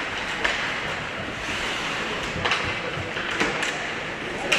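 Ice hockey play on a rink: a few sharp, irregular knocks of sticks and puck over a steady hiss of skating and arena noise.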